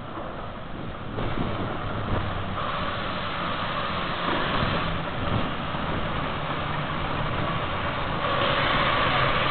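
Green Goddess, the Romney, Hythe & Dymchurch Railway's 15-inch gauge 4-6-2 steam locomotive, running into the station with its train, getting louder as it draws alongside and loudest near the end.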